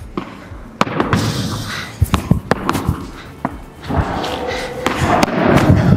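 Padel rally: the ball struck back and forth by padel rackets and bouncing off the court, a string of sharp hits about a second apart.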